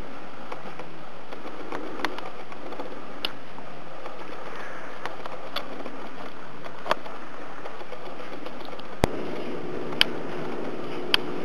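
Steady hiss of room noise with sharp clicks now and then, and a low steady hum that comes in about nine seconds in.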